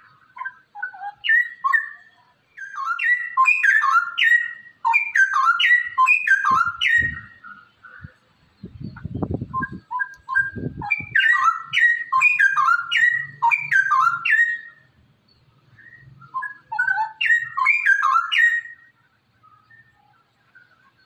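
Straw-headed bulbul (cucak rowo) singing in repeated phrases of a few seconds each, with short pauses between. There is a fainter low rumble around the middle.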